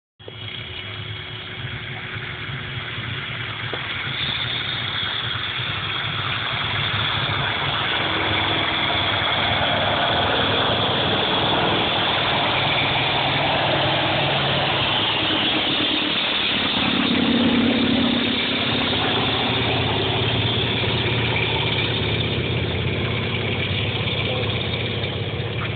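A biplane's propeller engine running at high power as the plane takes off and climbs away, a steady drone that grows louder over the first ten seconds and stays strong.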